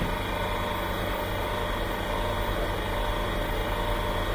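A steady low machine hum with a constant hiss underneath, holding at an even level throughout.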